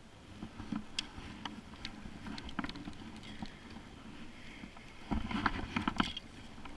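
Light clicks and knocks of fishing gear being handled on a plastic sit-on-top kayak, with a cluster of louder knocks about five seconds in as the paddle and rod are shifted against the hull.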